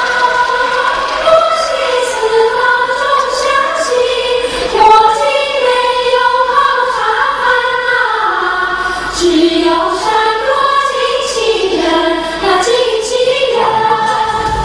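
A group of women's voices singing a melody together, high and without bass or drums, with a few light clicks above it.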